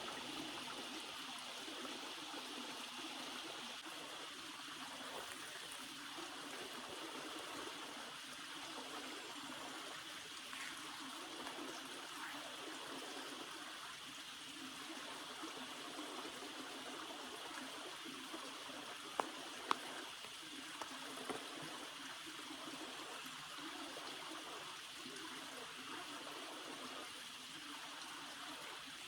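Small forest stream trickling steadily over its bed, with three short sharp clicks about two-thirds of the way through.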